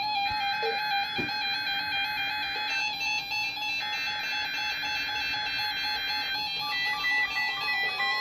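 Several weather alert radios sounding their alarms at once: overlapping rapid beeping tones at several pitches, making a layered warble, set off by the weekly NOAA Weather Radio test.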